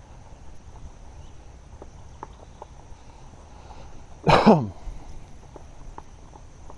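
About four seconds in, one short vocal sound slides down in pitch, the loudest thing here. Under it runs a low outdoor background with faint scattered ticks and a steady high insect drone.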